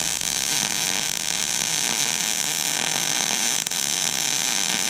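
Wire-feed welding arc running steadily: a dense, even hiss and crackle with a faint buzz.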